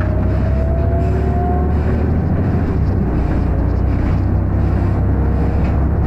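Volvo B7RLE bus's six-cylinder diesel engine and ZF automatic gearbox running on the move, heard from inside the saloon as a steady low drone. A thin whine rises slowly in pitch over the first couple of seconds.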